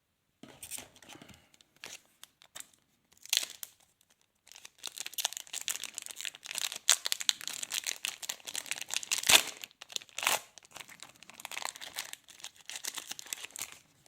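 Trading card pack wrapper being torn open and crinkled by hand. There are a few short crackles at first, then a dense crackling run from about four seconds in, with a sharp rip about nine seconds in.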